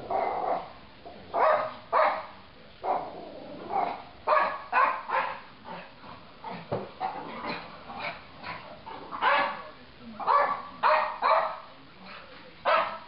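Silky Terrier barking over and over in short barks, some single and some in quick runs.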